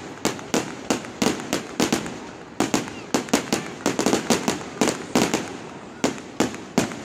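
Aerial fireworks going off in a quick, uneven string of sharp bangs, about three a second, each dying away briefly before the next.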